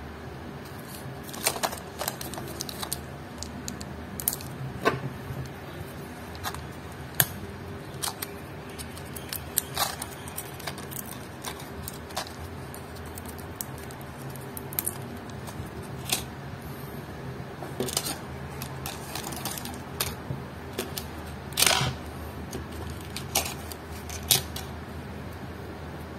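Scattered small clicks and taps of metal tweezers and a coin-cell watch battery as the battery is handled and fitted into a quartz watch movement, with a louder cluster of clicks near the end. A low steady hum runs underneath.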